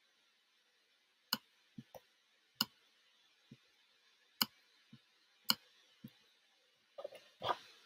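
A series of sharp, irregularly spaced clicks, about a dozen over several seconds, four of them louder than the rest, followed by a short, softer rustle near the end.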